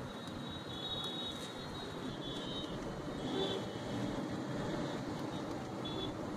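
Steady road noise and passing traffic heard from inside a moving car, with a few faint, short high-pitched tones now and then.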